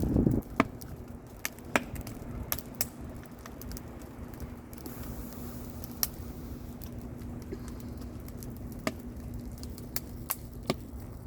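Wood campfire burning, with sharp pops and crackles coming at irregular intervals. A dull low knock or shuffle sounds right at the start.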